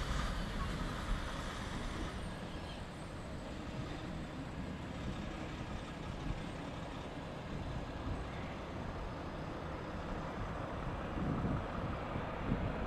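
Boeing 787-8 Dreamliner's jet engines during landing, as the airliner flares, touches down and rolls out: a steady rumble and hiss. A faint high whine slides slightly down in pitch in the first couple of seconds.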